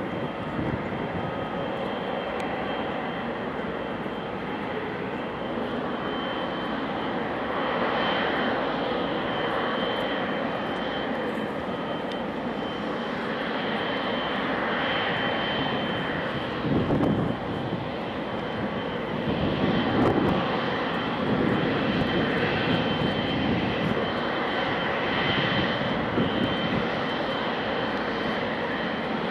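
Boeing 777-200LR's GE90 jet engines running at taxi thrust: a steady rumble with a thin high whine on top, swelling louder now and then in the second half.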